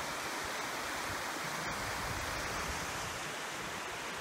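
Small waterfall and stream rushing over rocks, a steady, even rush of water.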